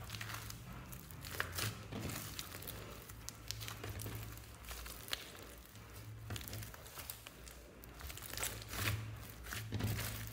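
Hands squeezing and kneading a large mass of soft mixed slime, giving irregular sticky crackles, clicks and pops, busiest near the end.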